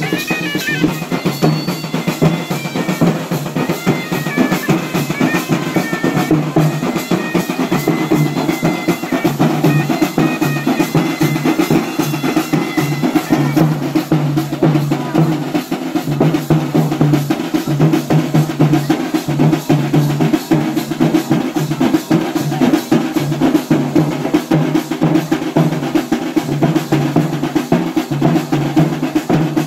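Procession drums beaten with sticks in a fast, steady, dense rhythm, with a deep pulsing drum tone under the strokes.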